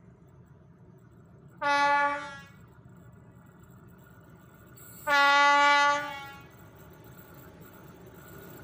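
Class 742 diesel locomotive's horn sounding two steady single-pitched blasts, a short one and then a longer one a few seconds later, as the train approaches the level crossing. The locomotive's engine is faintly heard underneath, growing slightly louder near the end.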